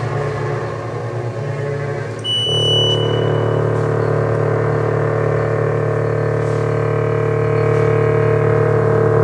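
Experimental tape-and-electronics drone music: a wavering layered texture that about two seconds in swells into a loud, steady low drone of several held tones. A brief high whistling tone sounds for about a second at the change.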